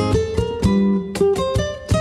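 Acoustic guitar playing a son cubano piece: a run of plucked notes and chords, several a second, each struck sharply and ringing briefly.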